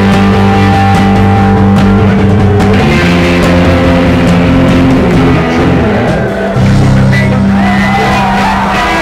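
Live rock band playing loud, with electric guitar over held low notes that change every few seconds. The sound dips briefly about six seconds in, then comes straight back.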